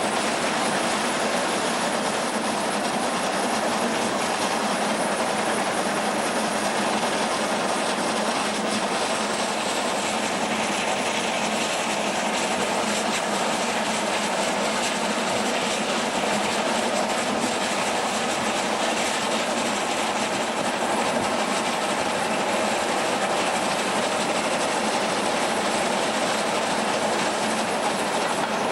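Train of FS Centoporte passenger coaches running along the line: a steady rolling noise of wheels on the rails with some clickety-clack.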